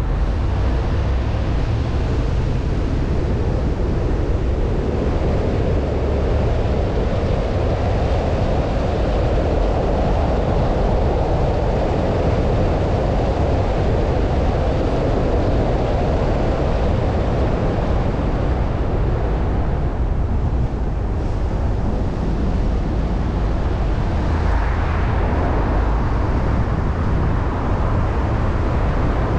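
A car driving at steady speed: an even rumble of tyre and road noise mixed with wind rush, growing slightly brighter about 25 seconds in.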